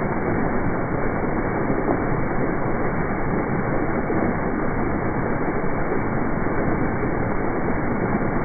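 Fountain jets spraying up and splashing back down into the pool: a steady rush of falling water.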